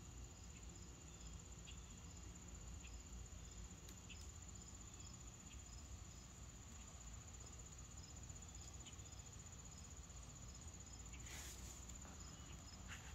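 Faint trilling of insects: a steady high trill with a short chirp about once a second. A brief hiss comes near the end.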